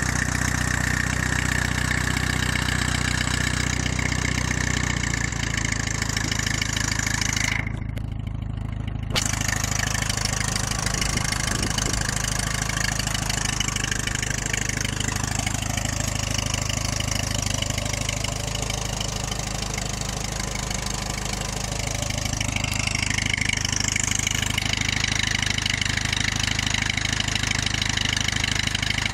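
1946 Case VAC tractor's four-cylinder engine running steadily while the tractor is driven, its note shifting about five seconds in and again a little past twenty seconds.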